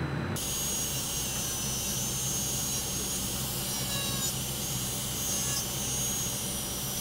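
Handheld rotary grinder (corded micromotor handpiece) running steadily with a cylindrical grinding bit, grinding and shaping a small sculpted figure part. Starts abruptly just after the beginning with a constant hiss over a low motor hum.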